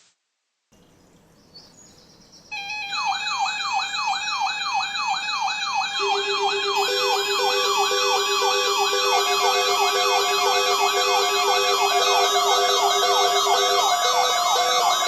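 Several electronic siren sounds layered together: fast rising-and-falling wail sweeps, a couple per second, start about two and a half seconds in. More steady and pulsing siren tones join one after another, building into a dense wall of overlapping sirens.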